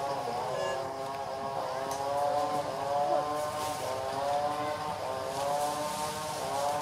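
A motor engine running steadily, its hum wavering slightly in pitch.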